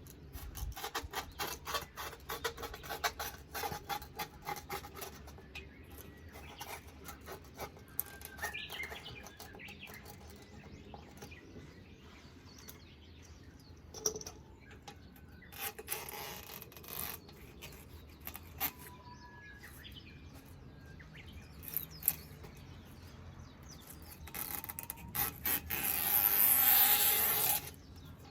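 Screen mesh and door frame being worked by hand during mesh replacement. First come rapid scratchy clicks for several seconds, then scattered rubbing and taps, and near the end a louder scraping rasp that lasts about two seconds.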